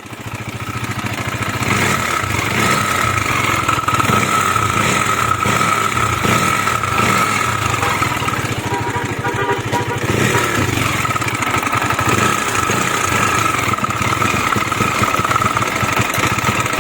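KTM 250 Duke's single-cylinder engine running steadily with a bad mechanical noise, which the mechanic traces to the tappets and the timing chain.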